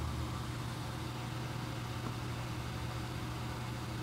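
A steady low mechanical hum over a constant hiss, with no change in pitch or level.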